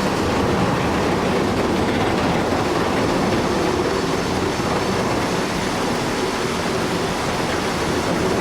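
Heavy machinery running with a steady, loud mechanical rumble and rattle.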